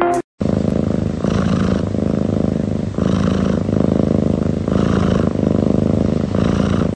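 A cat purring loudly: a steady, fast-pulsing rumble that swells in a slow rhythm, about every second and a half to two seconds, with each breath. It starts just after a brief break in the sound at the very beginning.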